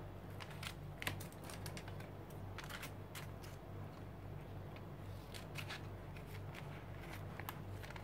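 Thin printed tissue paper, glued down with gel medium, being handled and pressed by hand: faint crinkling with scattered small clicks, over a low steady hum.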